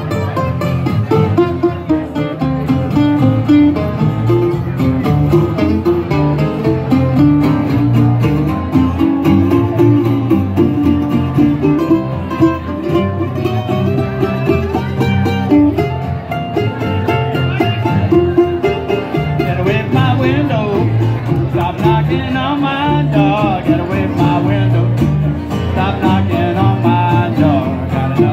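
Live acoustic string band playing an instrumental passage: a picked mandolin over guitar and upright bass keeping a steady beat. A wavering melody line joins in the second half.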